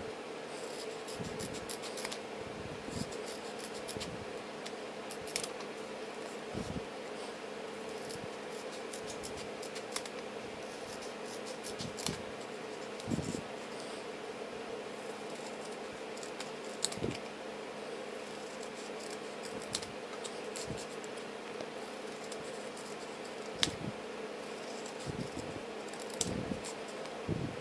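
Small plastic-handled scissors snipping through a printed sticker sheet, cutting out stickers one after another: irregular short snips a second or two apart, over a steady low hum.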